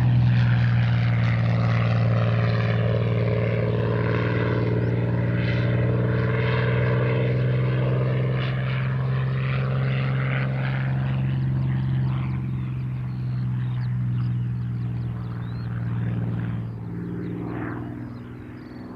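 A WWII piston-engined fighter's engine drones steadily as it flies past, then fades away near the end.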